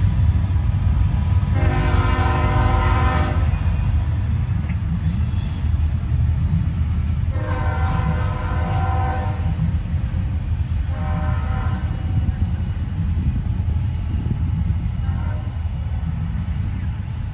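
Diesel locomotive's multi-chime air horn sounding over the steady heavy rumble of a passing train: two long blasts, then a short one, with a faint fourth sound near the end. The blasts begin the long-long-short pattern of a grade-crossing signal.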